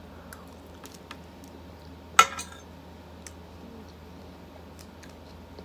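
Metal fork clinking against a ceramic plate while eating: scattered light clicks, with one sharp clink a little over two seconds in.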